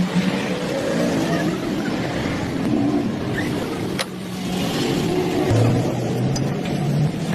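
A machine motor running steadily, its low hum shifting in pitch, with a sharp click about four seconds in.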